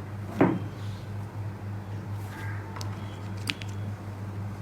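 Steady low electrical hum, with a short vocal sound about half a second in and a few faint clicks of parts or wires being handled later on.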